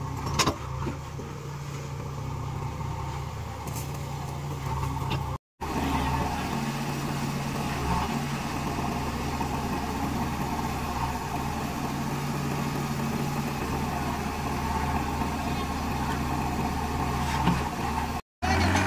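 Diesel engine of a JCB 3DX backhoe loader running steadily under work, with a few sharp clicks and knocks in the first few seconds. The sound drops out for a moment twice.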